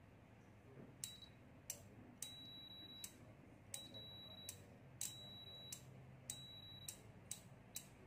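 A 12 V four-pin normally-open relay clicking faintly on and off again and again, about a dozen clicks, while a digital multimeter's continuity buzzer gives a high beep of under a second each time the relay's contacts close and stops when they open. This is the on-off switching of a working relay.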